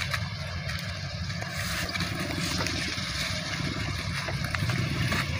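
A steady low engine rumble under a continuous rush of outdoor noise, with a few faint knocks.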